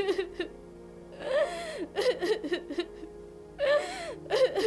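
A woman sobbing and whimpering in three wavering bursts, over a sustained background music score.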